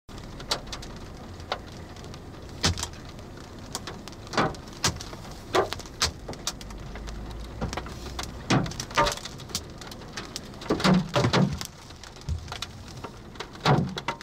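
Scattered hailstones about the size of quarters striking the roof and glass of a Subaru Crosstrek at the start of a hailstorm: irregular sharp knocks, one or two a second, over a steady patter of rain on the car.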